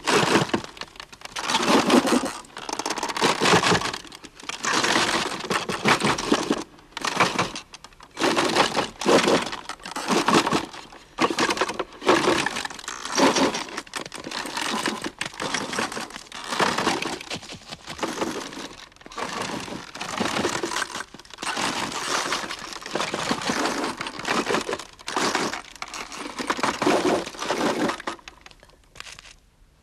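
Wooden hand loom clattering as it is worked, repeated knocking bursts about a second long with short gaps between them.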